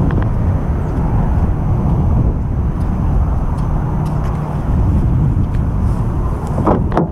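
Wind rumbling on the camera microphone: a loud, uneven low rumble without a steady pitch, with a brief handling knock near the end.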